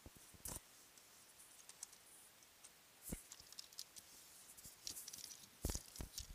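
Handling noise from fingers on the camera and the plastic Lego train: scattered soft clicks, rubs and knocks, the loudest knocks just after three seconds and near the end as the train is lifted.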